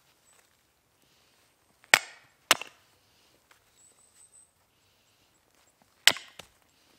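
Hultafors hatchet chopping small sticks of kindling on a wooden chopping block: two sharp chops about half a second apart around two seconds in, and another near the end followed by a light knock.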